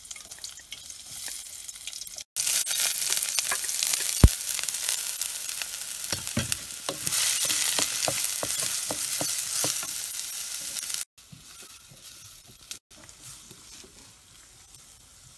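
Chopped onions sizzling in hot oil in a stainless steel pan, with a flat metal spatula scraping and knocking against the pan as they are stirred. The sizzle cuts in loud a couple of seconds in and drops away abruptly near the end.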